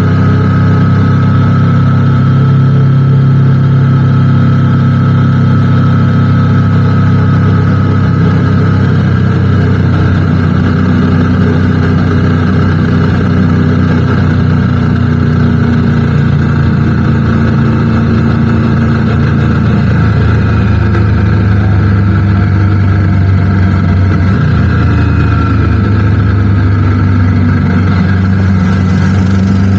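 Motorcycle engine running steadily under way, its pitch climbing near the end as the revs rise.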